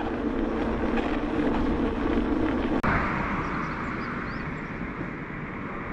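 Steady rolling and wind noise from riding a loaded touring bicycle along a paved path. About three seconds in it cuts abruptly to a different, brighter steady hiss with a few faint high chirps.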